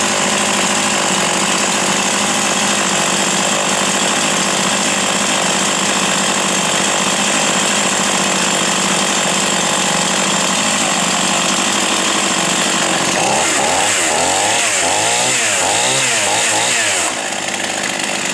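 Husqvarna 51 chainsaw's 50cc two-stroke engine idling steadily, unattended on a bench. The tone wavers up and down for a few seconds near the end.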